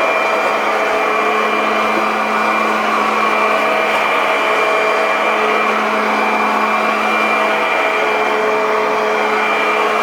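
Kirby Avalir 2 upright vacuum cleaner running steadily and loudly with a constant motor whine as it vacuums up loose styrofoam.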